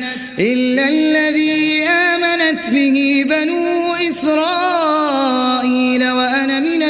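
A male Quran reciter chanting in melodic tajwid style. He takes a short break for breath just at the start, then holds long, drawn-out notes that waver up and down in pitch.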